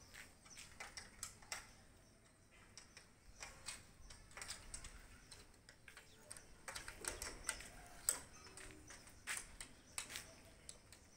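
Irregular light clicks and taps from the nuts and bolts on a steel column formwork box being loosened, a few sharper knocks among them.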